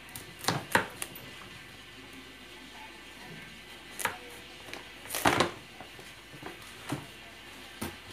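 Large kitchen knife chopping into a pumpkin's tough rind: irregular sharp knocks, three quick ones in the first second, then single strikes spread out, the loudest about five seconds in.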